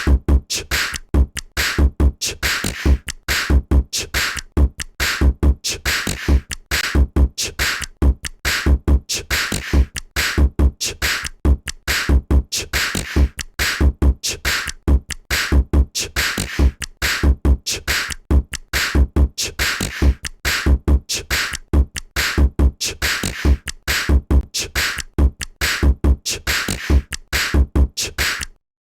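A built-in LineageOS 17.1 (Android 10) ringtone playing a steady electronic drum beat with deep bass thumps. It stops abruptly just before the end.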